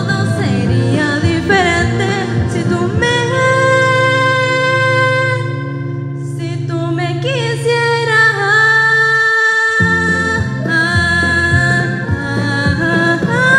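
A young woman singing in Spanish into a microphone over a karaoke backing track, holding long notes about four and eight seconds in. The accompaniment's low end drops out for a moment just before ten seconds.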